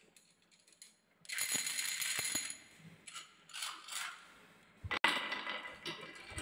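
Small glossy balls clattering and rattling on a wooden wavy-track marble run. The clatter comes in a burst about a second in, with a few sharp knocks, then softer rattles. A denser stretch of clatter starts abruptly near the end.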